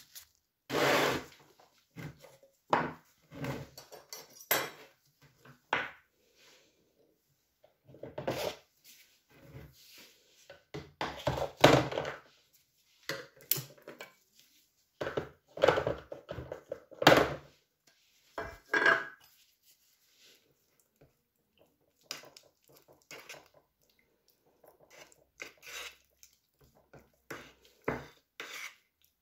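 Workshop handling noises in irregular bursts: a metal tin of filler paste and its lid clattering on the bench, and a metal spatula scraping and working the paste inside the tin.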